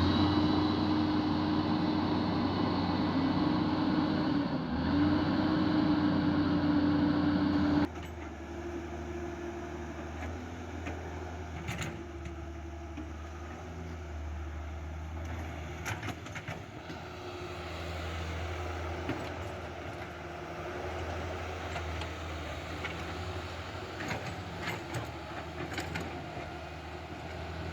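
Electric motors of a remote-control toy excavator whining as they spin up and run steadily. The whine dips briefly, then cuts off suddenly about eight seconds in. Fainter motor whirring and small plastic clicks follow.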